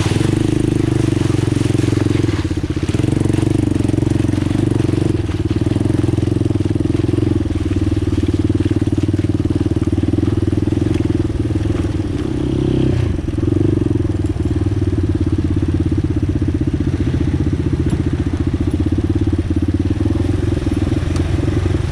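ATV engine running steadily while riding a trail, easing briefly about halfway through before picking up again.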